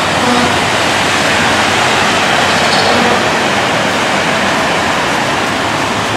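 Heavy rain falling in a steady downpour, a loud, even hiss.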